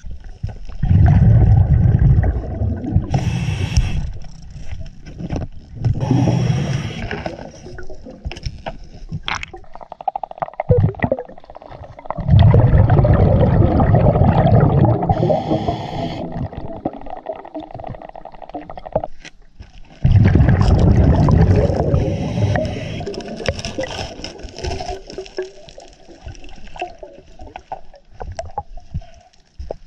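Scuba regulator breathing heard underwater: long bubbling exhalations that rumble in three bouts, about half a second in, about 12 s in and about 20 s in, with shorter hissing inhalations between them and a few clicks.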